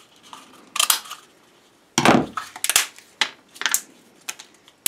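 Tin snips cutting through a thin polypropylene cup: one sharp cut about a second in and a louder one about two seconds in, followed by lighter clicks and taps of the plastic being handled.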